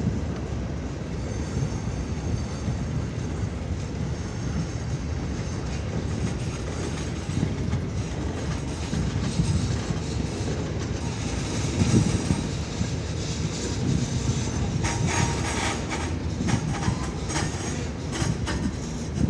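CN freight train rolling past: a steady rumble of wheels on the rails, with a faint high wheel squeal in the first few seconds and rapid clacking over the rail joints in the last few seconds.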